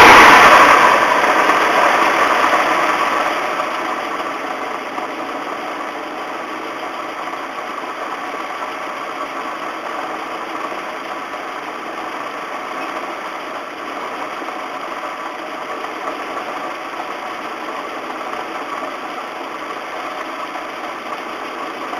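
Nissan Silvia's SR20 four-cylinder engine dropping back from a rev over the first few seconds, then idling steadily with a rumble. The rumble comes from crank bearings (connecting-rod bearings) starting to seize in a high-mileage engine.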